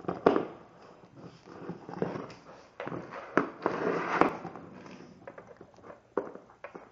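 Rottweiler puppy gnawing a cooked knuckle bone: irregular crunches and scrapes of teeth on bone, with the loudest bites about a third of a second in and again around the middle.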